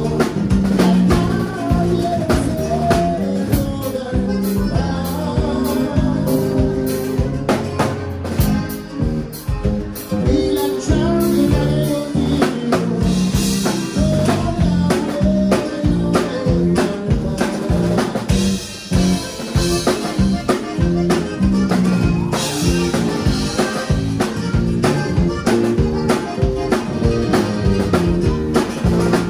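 Live conjunto band playing: button accordion carrying the melody over a stringed bass line and a drum kit keeping a steady beat.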